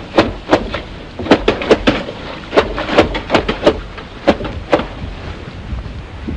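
A series of about fourteen sharp knocks or taps at an uneven pace, each with a short ring, stopping a little past the middle.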